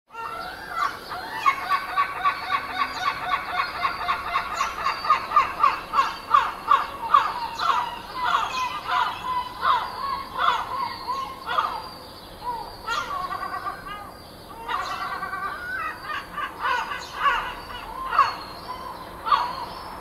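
Gulls calling: long runs of short, harsh cries repeated a few times a second. The calls thin out for a few seconds past the middle, then come back in bunches.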